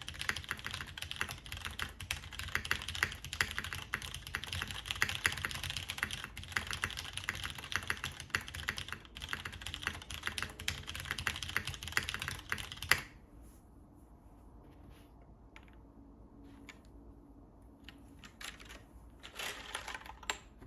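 Fast continuous typing on an Ovinnik TKL mechanical keyboard with MX Purple switches, a full aluminium plate and DCS keycaps. The keystrokes stop abruptly about two-thirds of the way through with one louder clack, followed by a few faint isolated clicks.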